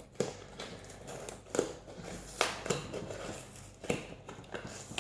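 A taped-up cardboard parcel being opened and handled: scattered sharp clicks and knocks with rustling of the packaging.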